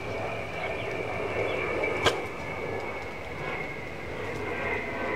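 Steady outdoor background noise with a thin, high, steady tone, broken by one sharp click about two seconds in.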